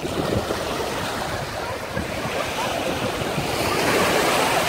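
Small waves breaking and washing up the shore around an inflatable dinghy in the shallows, swelling louder near the end, with some wind rumble on the microphone.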